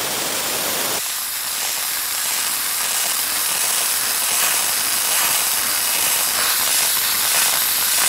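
Dry-ice blasting jet: compressed air carrying 3 mm dry-ice pellets out of the nozzle with a loud, steady hiss as it strips the surface of a wooden beam.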